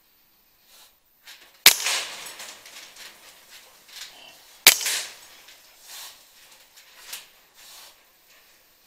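Two shots from a PCP air rifle, about three seconds apart, each a sharp crack that trails off over about a second.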